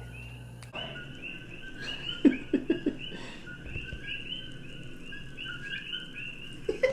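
Many short, high chirping calls repeating over one another, a chorus of small animals, with a few soft knocks about two to three seconds in.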